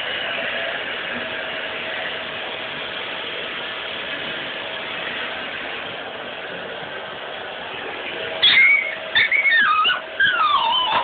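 Vacuum cleaner running with a steady hiss. About eight seconds in, a dog starts whining and yelping in high, sliding cries.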